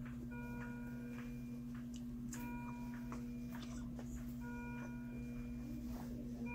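Hospital patient-monitor alarm: an electronic chord-like tone about a second long, repeating roughly every two seconds, over a steady low electrical hum with a few faint ticks.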